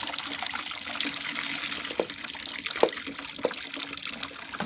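Wet paper-pulp and sawdust slurry poured from a plastic jug into a perforated steel press cylinder, its water trickling through the mesh into a plastic basin below. A few louder drops fall near the middle.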